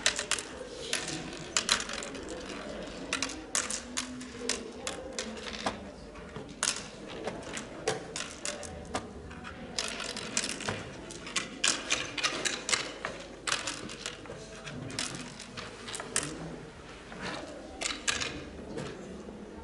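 Oware seeds clicking into the pits of a wooden oware board as a player sows them one by one, in quick runs of clicks with pauses between moves.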